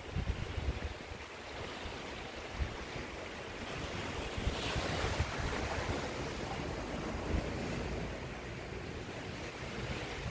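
Sea surf washing on a beach, swelling about halfway through, with wind buffeting the microphone.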